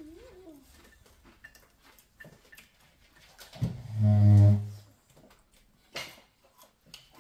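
Family dinner-table sounds: cutlery clicking on plates, a child's short wavering vocal sound at the start, and, about four seconds in, a loud, deep, steady voiced hum lasting about a second.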